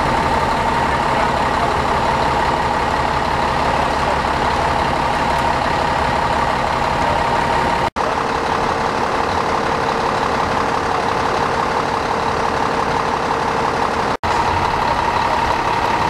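Fire engine idling at the scene: a steady engine drone with a steady high whine over it.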